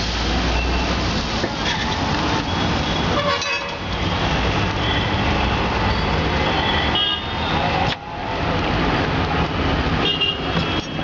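Busy street traffic, with vehicle engines running and horns tooting several times.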